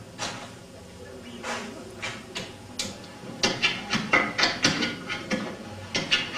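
A run of sharp knocks and bangs from sound effects performed live for a film scene. They come sparsely at first, then faster and louder about halfway through.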